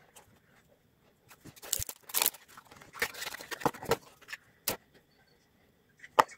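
A small cardboard product carton being handled and opened by hand, paperboard rustling and scraping in irregular bursts, with two sharp clicks, one just before the five-second mark and one near the end.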